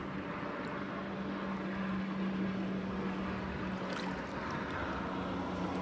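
Steady rush of shallow river water, with a constant low hum underneath.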